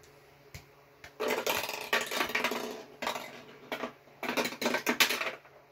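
Hard plastic rattling and clattering from a vintage Bats in the Belfry tower game as a ball is dropped into it. A dense rattle of nearly two seconds starts about a second in, followed by several shorter clattering bursts.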